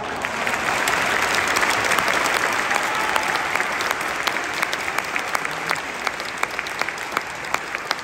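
A large stadium crowd applauding. The clapping swells over the first second and then slowly eases off, with individual nearby hand claps standing out sharply.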